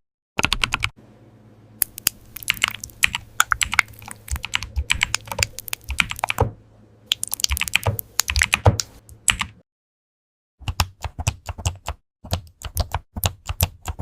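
Typing on a computer keyboard: rapid runs of key clicks in bursts, broken by a second of dead silence a little past the middle. A faint steady hum sits under the typing in the first half.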